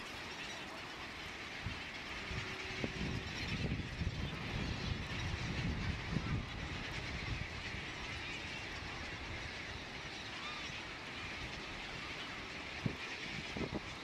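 Din of a large mixed flock of feeding seabirds, brown pelicans, shearwaters and gulls, with many faint overlapping calls and splashing over the water, under an uneven low rumble.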